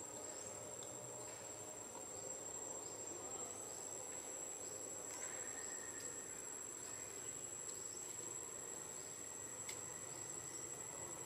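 Insects trilling in one steady, high-pitched tone, with faint short chirps repeating every half second or so.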